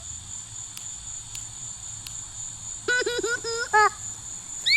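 Crickets chirring in a steady high drone. About three seconds in, a young child makes a short run of babbling sounds for about a second.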